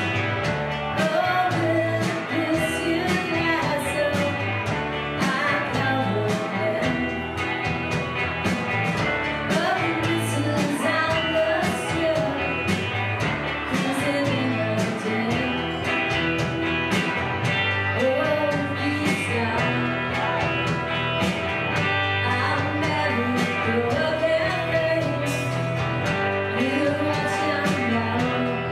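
Indie rock band playing live: electric guitars and drums, with singing over them.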